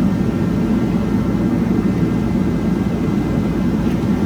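A steady low mechanical drone that holds at one level throughout, with no distinct knocks or clicks.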